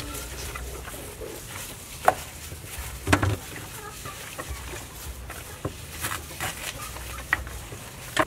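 Intermittent sharp knocks and clatter from bowls and utensils during hand food preparation, the loudest about two and three seconds in, over faint animal calls in the background.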